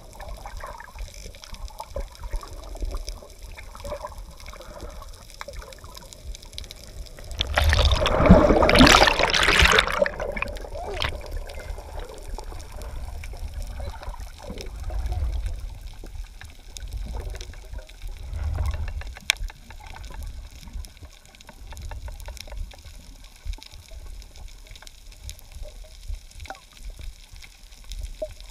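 Underwater sound picked up by a submerged camera: water moving around the housing with a low rumble. A loud rushing burst starts about seven and a half seconds in and lasts about two seconds.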